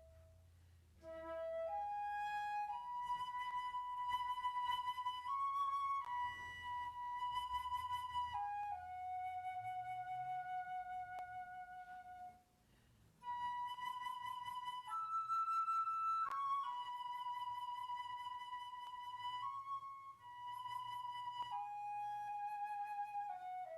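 A solo flute playing a slow, unaccompanied melody of held notes, in two phrases with a short breath between them about halfway through.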